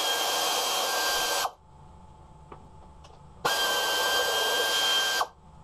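Handheld power tool spinning out the bolts that hold the motorcycle's front mudguard and fork brace: two runs at steady speed of about a second and a half each, with a steady whine, separated by a pause of about two seconds.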